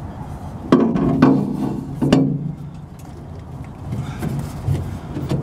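Rubber filler hose squeaking and rubbing against the metal filler neck as it is worked into place by hand, with a few short, sharp squeaks in the first couple of seconds, then quieter rubbing and handling.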